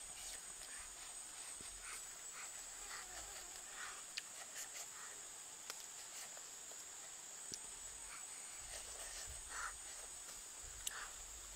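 A person eating grilled catfish close to the microphone: soft chewing, with scattered wet mouth clicks and lip smacks. A steady high-pitched drone runs behind it.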